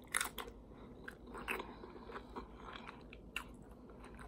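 Biting into and chewing a crunchy tortilla chip loaded with taco meat: a sharp crunch just after the start, then scattered smaller crunches as it is chewed.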